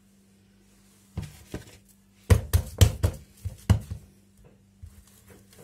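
A quick run of sharp slaps and knocks, about half a dozen close together between two and four seconds in, after a couple of lighter taps, from hands working dough on a stone counter. A low steady hum runs underneath.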